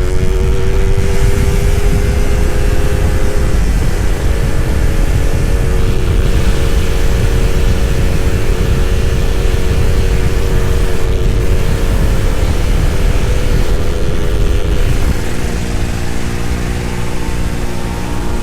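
Suzuki Satria 2T two-stroke motorcycle engine running at speed while riding, its pitch rising slightly over the first few seconds, holding steady, then falling as the throttle eases off near the end. Heavy wind rumble on the microphone underneath.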